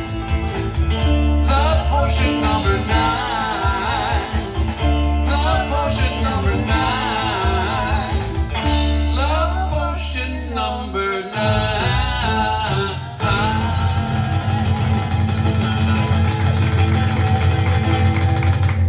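Live rock band playing with electric guitar, bass, drum kit and keyboard, the guitar carrying bending lead lines. About two-thirds of the way through, the band settles into a long sustained chord.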